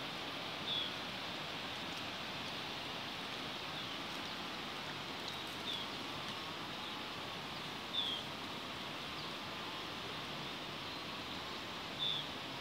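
Steady outdoor hiss with short, high chirps from a small animal, about seven of them at irregular gaps of one to three seconds.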